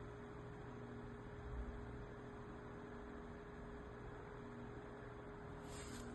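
Faint steady electrical hum with an even hiss underneath: room tone, with one soft low bump about a second and a half in.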